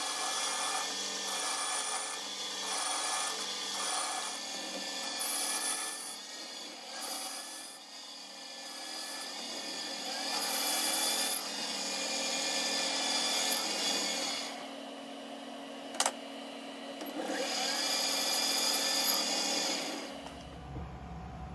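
A metal lathe runs with a steady whine while a boring bar cuts inside a spinning metal workpiece, making repeated bursts of grating cutting noise as it feeds in to a depth stop. There is one sharp click partway through. The machining stops about a second before the end, leaving a low hum.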